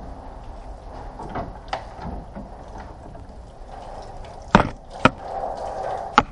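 A few sharp knocks and clunks over a steady background noise, the loudest coming in the second half, two of them about half a second apart.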